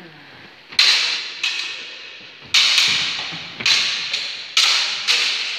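Longsword blades clashing in sparring: about eight sharp metallic strikes, often in quick pairs, each ringing and fading away over about half a second.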